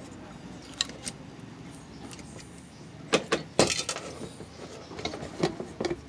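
Metal clinks and knocks from handling the metal base housing of an old Oster blender during disassembly, with a few light clicks about a second in and a cluster of rattling knocks between about three and four seconds in.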